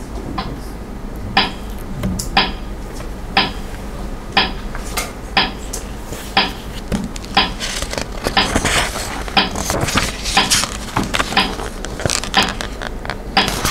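Countdown timer ticking with a sharp metallic clink about once a second, counting down seconds, with fainter irregular clicks between the ticks.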